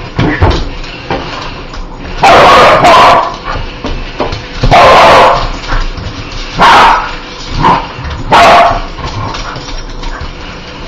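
Dog barking loudly in a run of about five barks, one to two seconds apart, starting about two seconds in.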